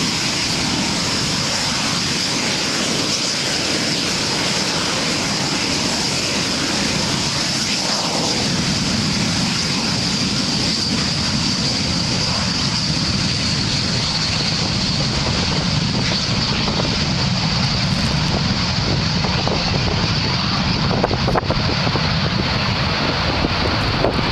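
Aero L-39 Albatross jet trainers' turbofan engines running at high power on the takeoff roll. It is a steady, loud jet noise with a high whine over a low rumble that grows heavier partway through.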